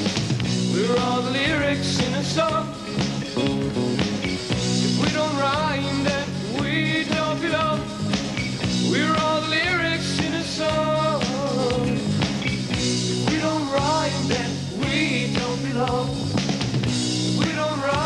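Rock band playing with electric guitar, bass and drums, with a high lead line that slides and bends in pitch over steady low bass notes.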